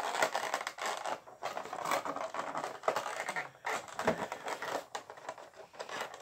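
Cardboard Funko Pop box being opened by hand: its flaps and inner packaging scraping, rubbing and clicking in many small irregular sounds.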